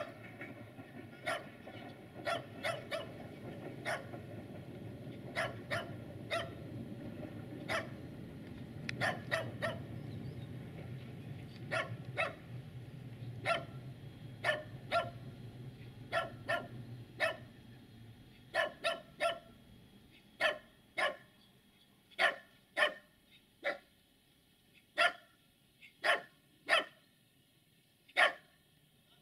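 A small mixed-breed dog barking repeatedly, single short barks at irregular intervals, growing louder in the second half. A low steady rumble underneath fades out about two-thirds of the way through.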